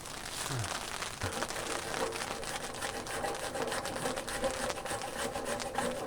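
Wood fire crackling in a fire pit, a dense run of small pops and snaps with a faint steady whistle underneath.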